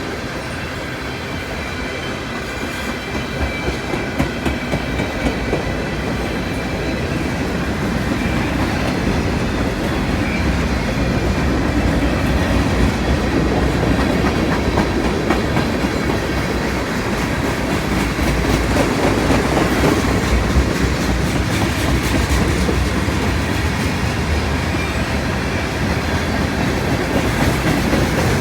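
CN freight train rolling past, its cars' wheels rumbling steadily with a clickety-clack over the rail joints; the rumble grows a little louder partway through.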